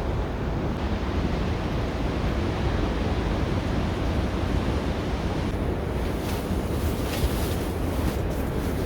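Wind buffeting the microphone, a steady rushing noise heavy in the low end, with a few brief rustling crackles about six to eight seconds in.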